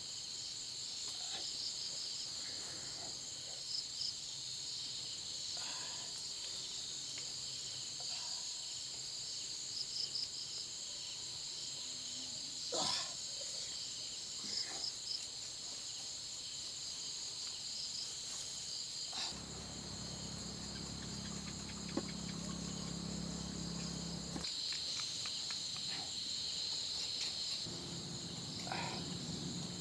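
Steady chorus of insects in the surrounding grass, with short knocks every second or two as a large knife chops a snake on a wooden plank table. A low hum comes in for about five seconds past the middle.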